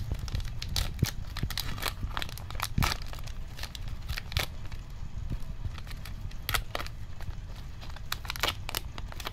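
A trading-card booster pack wrapper being torn open and crinkled by hand, in quick, irregular crackles.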